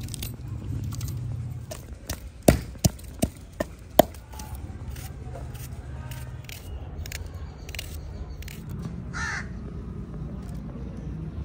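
Knife cutting vegetables held in the hand, with small cutting clicks and a run of five sharp clicks about two and a half seconds in. A harsh bird call comes near the end.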